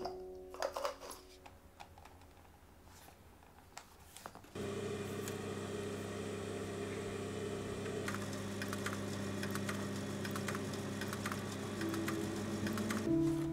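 A few light clicks, then about four seconds in a small electric motor starts suddenly and runs steadily with a hum, with rapid irregular ticking over it.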